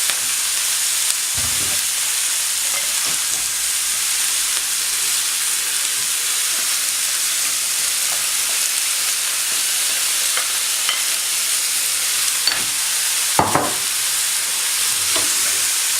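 Vegetables frying in a little oil and spice paste in a pan, with a steady sizzle. There are a couple of knocks, one about a second and a half in and one near the end.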